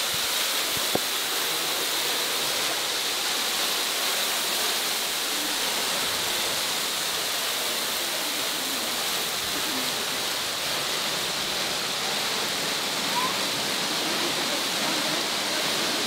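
Waterfall: a steady, even rush of falling water with no let-up. A single sharp click about a second in.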